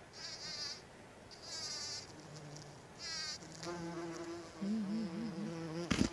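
A bumblebee buzzing close by among the flowers. From about three and a half seconds in its hum is steady, its pitch wavering now and then. It is preceded by three short, higher-pitched buzzing bursts, and a sharp click comes near the end.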